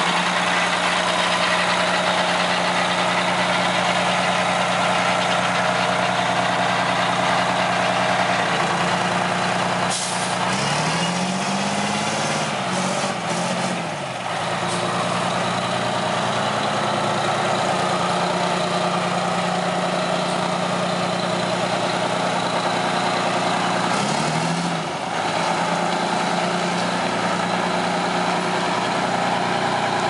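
1989 Flxible Metro transit bus diesel engine idling steadily, heard close to its exhaust, which sounds unusually loud to its owner. The engine speed rises and falls briefly about eleven seconds in and again near the end.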